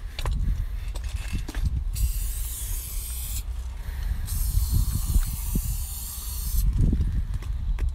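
Aerosol spray-paint can hissing in two bursts, one starting about two seconds in and a longer one from about the middle until shortly before the end, over a steady low rumble.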